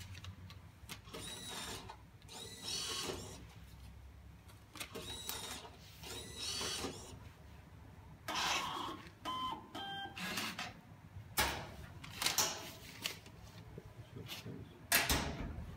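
Electronic storage-locker payment terminal at work: the banknote acceptor's motor whirs twice as it draws in a paper note, a few short electronic beeps follow, then the built-in receipt printer runs. Near the end a loud clack, the locker's electric lock releasing the door.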